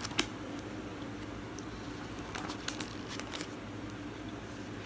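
Paper rustles and soft clicks as a thick paperback comic book's pages are flipped and the book is turned over, a few times between about two and three and a half seconds in, over a steady low hum.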